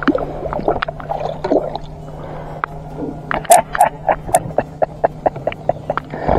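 Sharp clicks and knocks of handling against an aluminum jon boat's hull and gear, the loudest about halfway through, then a quick, even run of clicks near the end, over a steady low hum.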